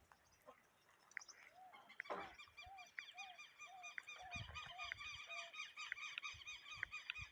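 A flock of small green parrots chattering and squawking while they feed, a dense run of high, repeated calls that starts about two seconds in. Among them is a string of about eight short, lower, arched call notes.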